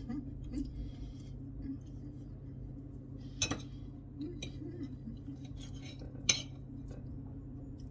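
Knife and fork clinking against a plate as a pancake is cut, with two sharper clinks about three and a half and six seconds in, over a steady low hum.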